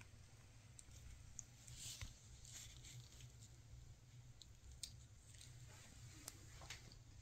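Near silence: a low steady room hum with scattered faint clicks and soft rustles.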